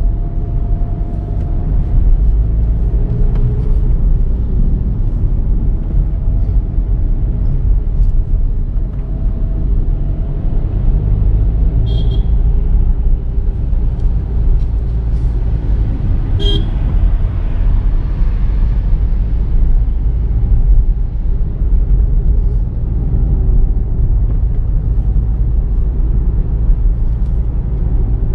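Volkswagen Virtus GT driving, with the steady low rumble of its 1.5-litre turbo petrol engine and road noise. Two short horn toots come about four seconds apart near the middle.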